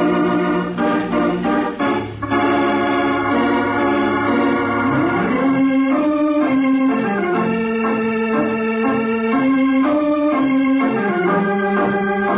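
Organ playing a radio drama's closing theme music: sustained chords under a slow melody that steps from one held note to the next.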